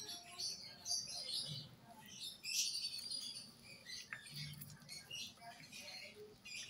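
A cat chewing on a piece of chicken, with quiet, irregular crunching and crackling as it gnaws.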